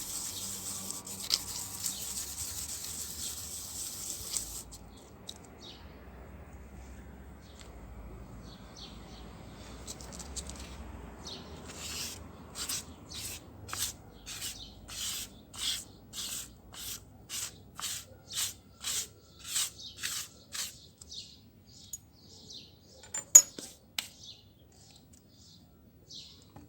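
A Moser hair clipper blade rubbed back and forth on fine abrasive paper to flatten and level its teeth, in a run of even scraping strokes about two a second. A steady hiss fills the first few seconds, and a sharp click comes near the end.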